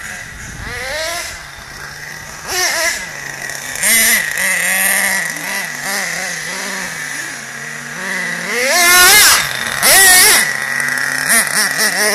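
Nitro RC monster truck's small two-stroke glow engine idling and revving in repeated short rising bursts as it is driven, the loudest revs about nine and ten seconds in.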